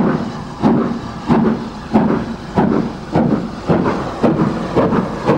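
Southern Railway S15 class 4-6-0 steam locomotive No. 847 working hard, its exhaust chuffing in sharp, even beats a little under two a second that quicken slightly as it approaches.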